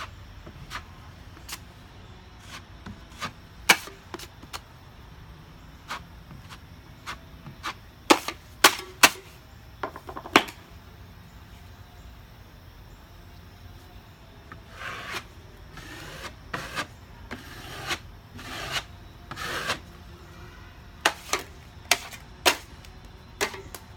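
Drywall knife and mud pan at work on joint compound: sharp clicks and taps of the knife against the pan, with a run of longer scraping strokes past the middle as mud is spread over mesh tape on the seams.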